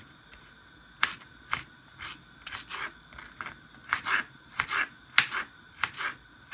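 Kitchen knife chopping a peeled tomato on a cutting board: short sharp knocks of the blade meeting the board, about two a second, starting about a second in.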